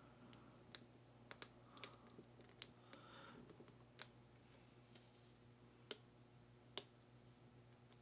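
A hook pick working the pin tumblers of a brass American round-body padlock under light tension: faint, sharp metallic clicks at an uneven pace as the pick lifts and taps the pins, with soft scraping of the pick in the keyway between them.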